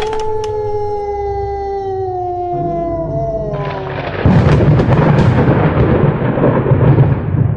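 Spooky sound effects: a long drawn-out howl that slowly falls in pitch, then, about four seconds in, a loud rumble like thunder.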